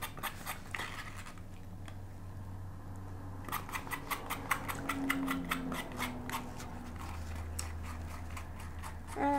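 A spoon scraping out the bottom of a small gravy cup in quick, irregular strokes, with a pause partway through. Near the end comes a short vocal sound that falls in pitch.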